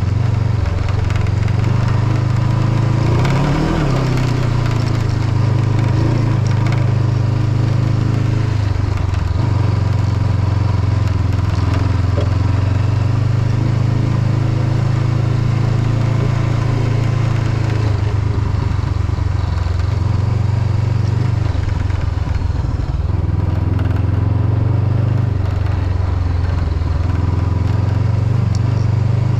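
Honda CB500X parallel-twin motorcycle engine running under way, its note dropping and picking up again several times with throttle and gear changes, with tyre and gravel noise underneath. A loose windshield rattles along, which the rider puts down to a lost windshield screw.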